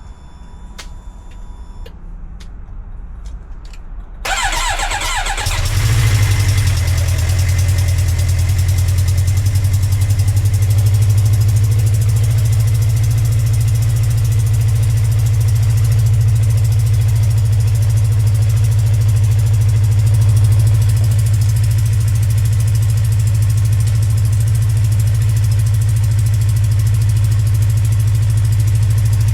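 Suzuki GSX-R 750 inline-four motorcycle engine cold-started after sitting for months. After a few quiet seconds with faint clicks, the starter cranks about four seconds in, and the engine catches about a second later and settles into a steady idle. A ticking comes from an exhaust leak.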